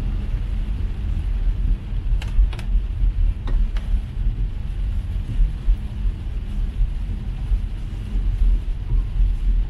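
Steady low rumble of a car driving on a rain-soaked road, heard from inside, with a hiss of heavy rain and tyre spray. A few faint ticks come about two to four seconds in.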